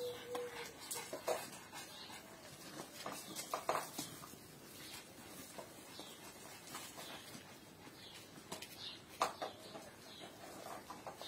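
Boston terrier puppies digging in a plant pot's soil and scrabbling on gravel: scattered short scratches and rustles.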